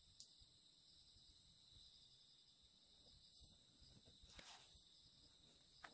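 Near silence: faint crickets chirping steadily and high-pitched, with one soft rustle about four and a half seconds in.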